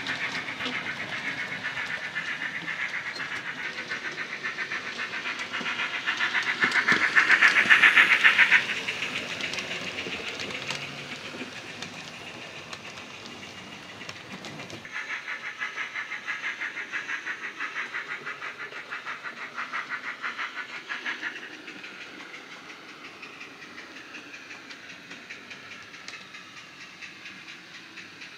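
Dapol 61XX Large Prairie model steam locomotive running with a DCC sound decoder, playing a rhythmic steam-exhaust chuff through its small speaker, along with the clatter of model coach wheels on the track. The chuffing is loudest about seven to eight seconds in, then drops suddenly about halfway and fades.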